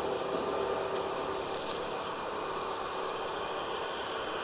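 Steady high-pitched drone of cicadas in tropical forest, with a few short high chirps of small birds about two seconds in.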